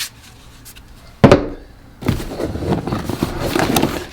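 One sharp, loud knock about a second in, as something is set down hard, then a stretch of rustling and small clatters of cardboard and plastic packaging being handled.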